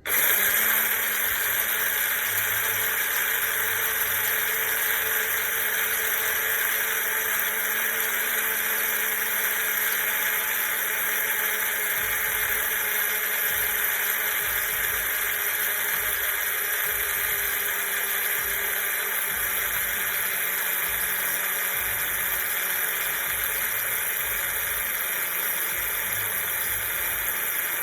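Electric coffee grinder motor starting abruptly and running with a steady whir, grinding coffee beans during a 30-second run that takes them from coarse to a fine grind.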